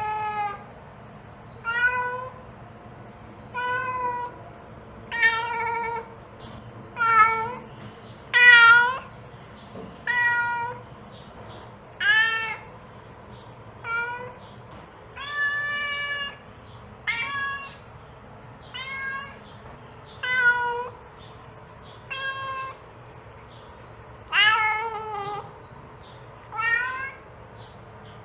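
Mother cat meowing repeatedly to call her kittens: about fifteen short calls, roughly one every two seconds, some of them falling in pitch at the end.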